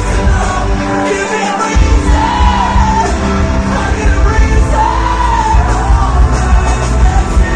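Metalcore band playing live, loud, with singing over heavy bass and drums. About a second in the low end drops out briefly, then crashes back in.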